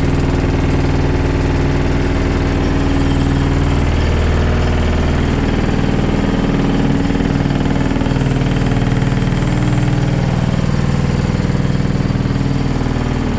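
Loud, steady earthquake rumble: a deep, engine-like drone with a wash of noise over it.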